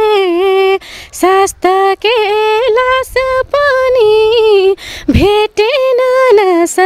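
A young woman singing a Nepali folk-style song unaccompanied. She sings in short phrases of held notes with quick wavering turns, separated by brief breaths.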